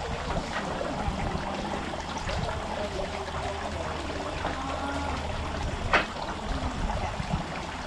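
Water trickling steadily from the bamboo spouts of a shrine's purification fountain into its basin, with a sharp click about six seconds in.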